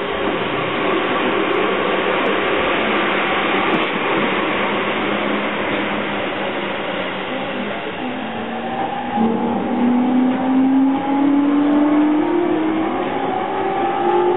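Running noise inside a JR East E231-series electric train. The traction motors' inverter whine rises steadily in pitch from about halfway through as the train picks up speed.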